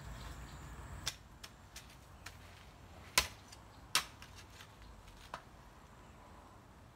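Hoe blade chopping into hard garden soil: a series of sharp knocks, the two loudest about three quarters of a second apart near the middle, with fainter ones around them.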